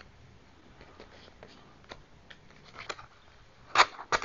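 Scattered light clicks and taps of hard plastic as a welding face shield is handled and its dark filter lens slid into the frame, with two sharp, louder clicks near the end.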